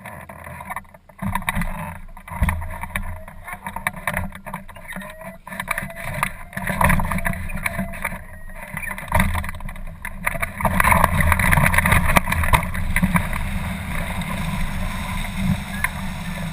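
Wind rushing and buffeting the microphone in uneven gusts, growing louder about ten seconds in.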